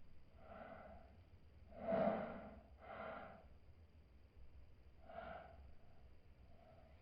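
A woman's breaths before a sneeze: about five short, breathy ah-like sounds with pauses between them, the second, about two seconds in, the loudest.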